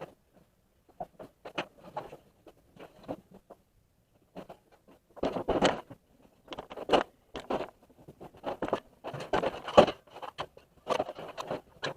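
Irregular knocks, scrapes and rustles of assorted objects being picked up, moved and set down, sparse at first and busier from about five seconds in.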